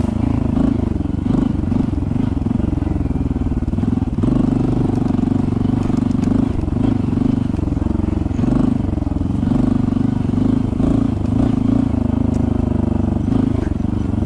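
Honda CT125 Hunter Cub's single-cylinder four-stroke engine running steadily at low trail speed. Its pitch rises and falls as the throttle is opened and eased.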